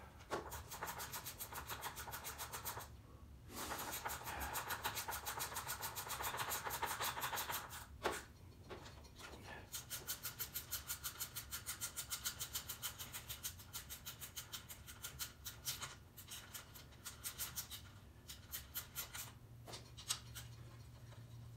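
Hand ratchet wrench clicking in quick runs of several seconds, with short pauses and one sharp click about eight seconds in, as the bolts holding the lower unit to a 1963 Johnson 40 hp outboard are tightened.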